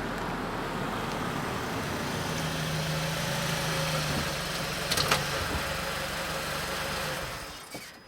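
A car's engine running as it drives past, with a steady low engine note in the middle and a sharp click about five seconds in. The sound fades out near the end.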